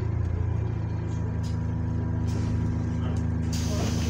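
Bus's diesel engine running with a steady low drone, heard from inside the passenger saloon; a hiss comes in near the end.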